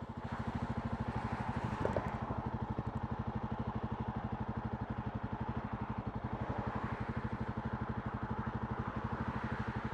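Jawa Perak's single-cylinder engine running at low, steady revs, its exhaust beating in an even, rapid pulse. A brief clack sounds about two seconds in.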